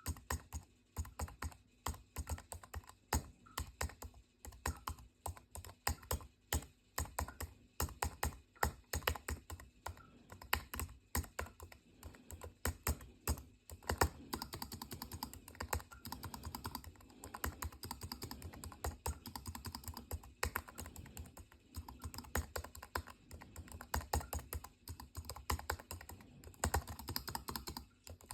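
Typing on a mechanical keyboard: quick key clicks, in short bursts at first, then faster and more continuous from about halfway through.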